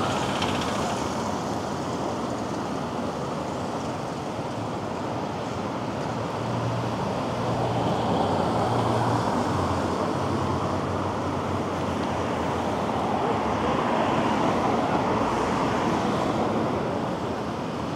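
Steady city street traffic heard from a moving bicycle, with a low engine hum for a few seconds near the middle.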